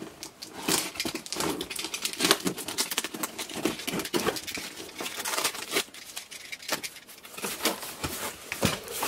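Cardboard box wrapped in plastic stretch film being cut open with a utility knife and its flaps pulled open: irregular crackling, scraping and crinkling of packing tape, plastic film and cardboard.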